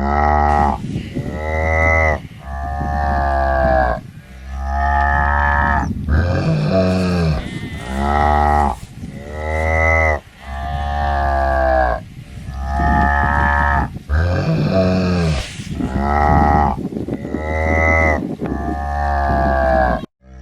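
Cow mooing over and over, about one long moo every two seconds, each call arching up and down in pitch.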